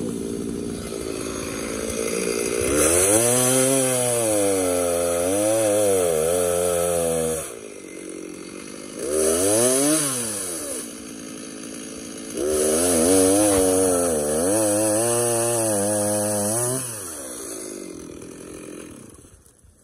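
Gas chainsaw revved to full throttle three times to cut through a felled tree trunk, dropping back to a lower idle between cuts. It winds down near the end.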